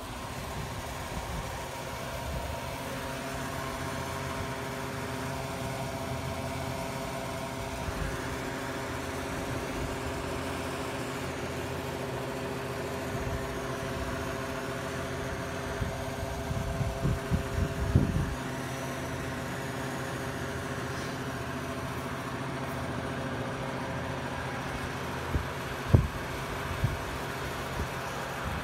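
A steady mechanical hum, engine-like, made of several held tones without change in pitch. A few short knocks, as of the phone being handled, come around the middle and twice near the end.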